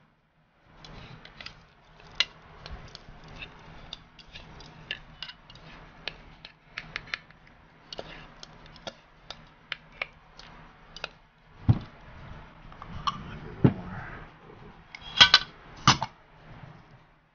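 Chopsticks clicking and scraping against a mixing bowl as cubed raw tuna poke is tossed, a long run of small irregular clicks. Near the end come a couple of heavier knocks and then two loud clinks as the dishes are handled.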